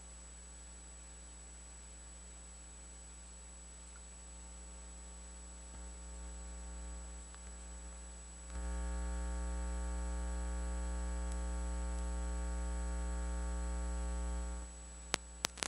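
Electrical mains hum through the church sound system: a steady buzz with many overtones that grows louder about halfway through and drops back shortly before the end, followed by a few sharp clicks.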